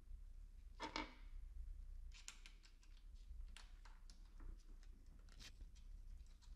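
Faint, scattered small clicks and rustles of gloved fingers threading the handlebar clamp screws into the stem bracket by hand, with a slightly louder brief scrape about a second in.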